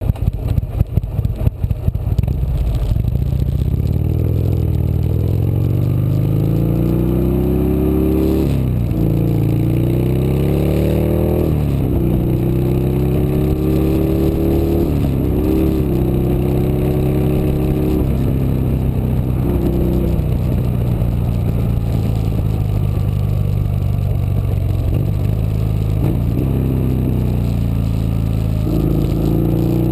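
Harley-Davidson XR1200's V-twin engine running through a new muffler, choppy and uneven for the first couple of seconds, then running steadily. Its revs climb slowly and drop suddenly several times, around 8 and 12 seconds in and again later.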